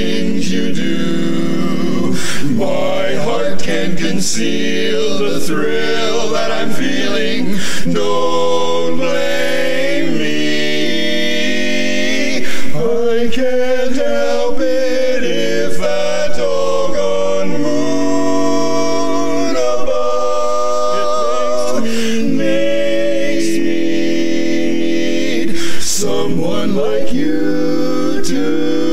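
Barbershop quartet of four men singing a cappella in close four-part harmony, holding chords and moving from chord to chord.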